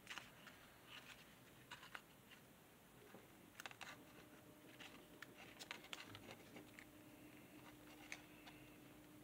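Near silence with faint, scattered ticks and crinkles of origami paper being pinched and creased between the fingertips.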